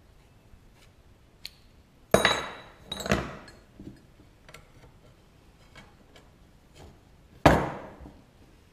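Copper pipes and a small pipe cutter knocking on a wooden workbench as they are handled and set down: two sharp knocks about two seconds in, the first with a short metallic ring, and one more loud knock near the end, with light clicks between.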